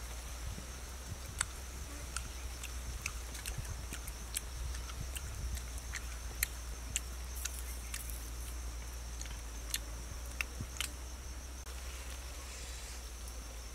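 Steady high-pitched insect chorus in the forest, with scattered sharp clicks and crackles over it.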